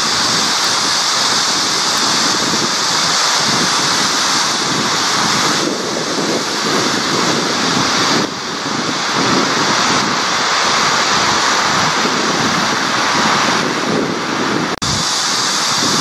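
Steady outdoor wind and water noise at the river's edge, with no music, dipping briefly a few times where the footage changes.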